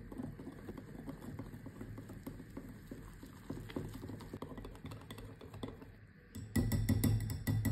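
Wire whisk beating mango purée and flour into batter in a glass bowl: a steady run of quick clicks and scrapes of the wires against the glass. The clatter turns markedly louder for the last second or so.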